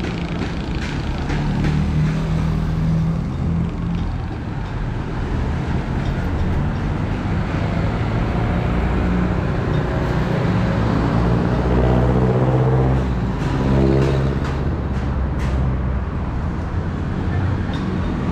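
Street traffic: engines of vehicles running close by, with one louder engine coming up and passing about eleven to fourteen seconds in.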